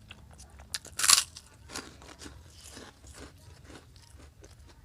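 A person biting and chewing crunchy food close to the microphone: one loud crunching bite about a second in, then steady chewing, about two strokes a second.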